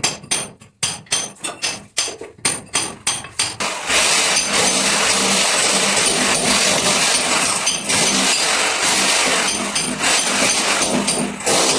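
Hammer blows striking about three times a second, each with a short metallic ring. About four seconds in, a power tool starts and runs loud and steady, dipping briefly near the end.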